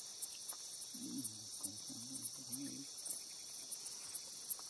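Night insect chorus of crickets: a steady high shrill with rapid fine clicking above it. About a second in, a low, wavering man's voice sounds for nearly two seconds without clear words.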